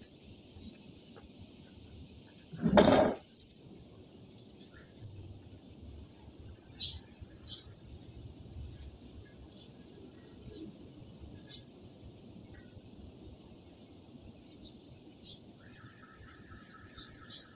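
Outdoor ambience: a steady high-pitched insect chorus with scattered faint bird chirps, and a rapid chirping trill near the end. About three seconds in comes one short, loud thump.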